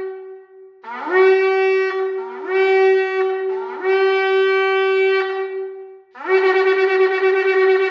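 A blown horn sounding several long calls, each scooping up in pitch into a held note; the last call, from about six seconds in, wavers quickly.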